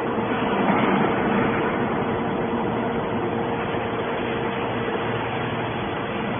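Hydraulic scrap metal baler running: a steady machine hum with a constant whine.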